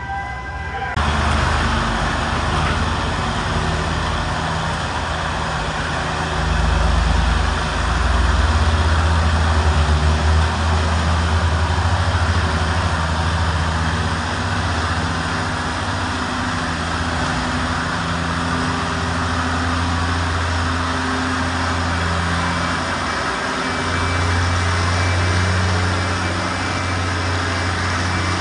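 Antique farm tractor engines running hard under load, pulling a weight-transfer sled: a loud, steady low engine drone with heavy noise over it. It comes in abruptly about a second in and swells louder for a few seconds from about six seconds in.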